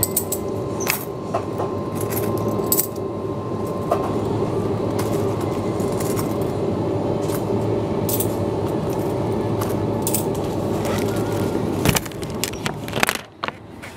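Steady shop hum with scattered small clicks and clinks. Near the end, the plastic shopping basket holding the camera is picked up, with a few loud rattling knocks.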